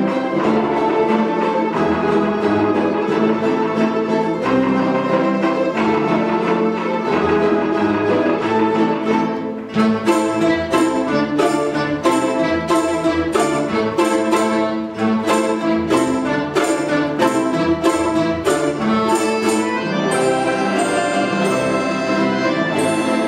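A Russian folk-instrument ensemble playing a folk-style piece. It opens with held, sustained melody notes, and about ten seconds in switches to short, sharp chords at about two a second.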